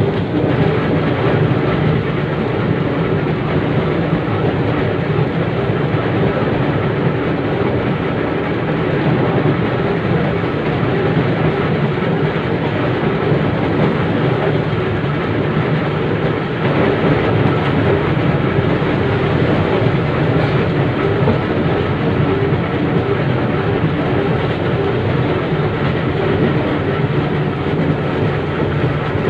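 Steady running noise heard from inside an 1898 Sydney C-class single-truck tram under way: its steel wheels rolling on the rails, with the car and its two GE 67 traction motors running.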